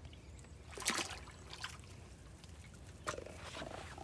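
Water splashing as a hooked catfish thrashes at the surface, with a loud splash about a second in and another about three seconds in.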